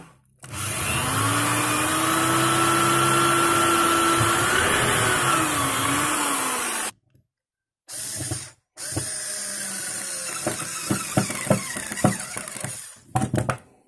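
Corded electric drill running steadily as a small bit bores a hole into a piece of tree branch, its pitch wavering shortly before it stops. After a brief pause and a short burst, a small cordless screwdriver runs with a string of clicks, driving a screw into the wood.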